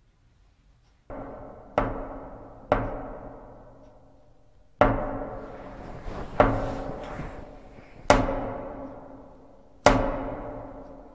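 A series of about seven loud, booming bangs, one to two seconds apart, each ringing out slowly before the next, like heavy pounding.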